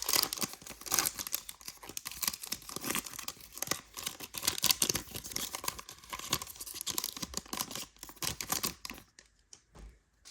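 Trading card pack wrapper being torn open and crinkled: a dense run of ripping and crackling that dies down about nine seconds in.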